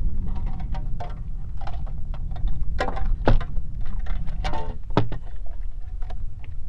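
Clattering and knocking of gear being rummaged and handled in a boat's storage compartment, a string of uneven clicks with a few louder knocks, over a steady low rumble.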